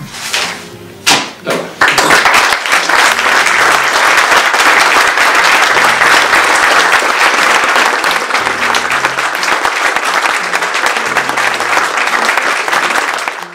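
Audience applause. A few scattered claps in the first two seconds swell into full, dense clapping that cuts off suddenly near the end, with soft music underneath.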